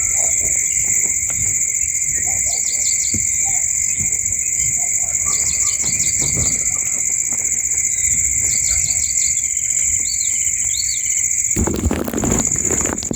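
Steady high-pitched insect drone, like crickets or cicadas, with birds chirping over it in short runs of quick notes and a few gliding calls. Near the end, a burst of rustling, scraping noise cuts in.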